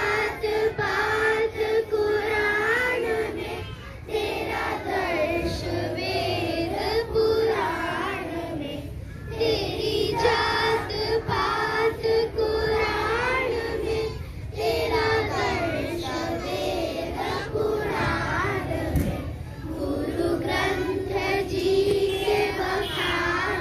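Group of schoolchildren singing a prayer together in unison, in phrases a few seconds long with short breaks between them.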